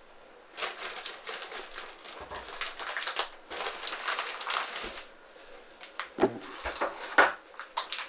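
Hoover Dynamic front-loading washing machine tumbling its drum during a rinse: wet, sudsy laundry sloshing and swishing in the water in irregular strokes. It ends with a few dull thumps in the last two seconds, the loudest near the end, as the load drops in the drum.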